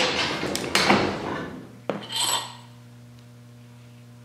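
Steel tool and overdrive parts clanking and clattering against each other as the puller and bearing separator are handled, ending in a ringing metallic clink about two seconds in. After that only a steady low hum remains.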